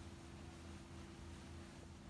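Faint, steady low hum of a river boat taxi's engine under an even hiss.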